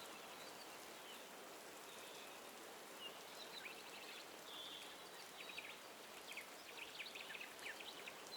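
Soft, steady rain hiss with small birds chirping and trilling over it, the calls coming more often in the second half.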